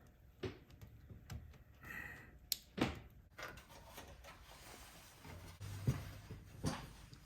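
Irregular knocks, clicks and thunks of computer parts and the case being handled during assembly, the sharpest about three and six seconds in.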